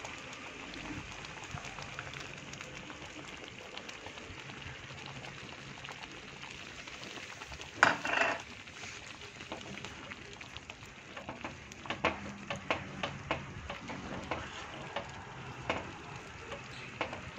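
Mango curry bubbling in a pan, with a steady sizzle. About eight seconds in, tamarind water is poured in with a brief splash. From about eleven seconds on, a spatula clicks and scrapes against the pan as the curry is stirred.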